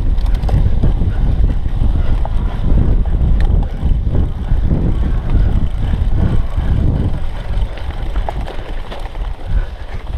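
Heavy wind buffeting on the GoPro Hero 3's microphone mixed with the rumble and rattle of a cyclo-cross bike riding fast over a bumpy dirt trail, with a few sharp knocks from the bike over the rough ground.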